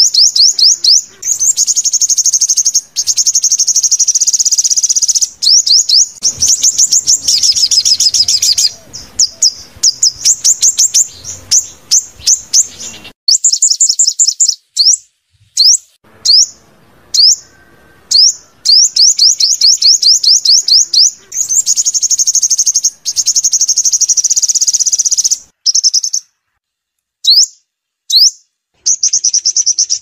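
Sunbird song: fast, high-pitched trills of sharp repeated notes in runs of a few seconds with short breaks, thinning to scattered single notes at times.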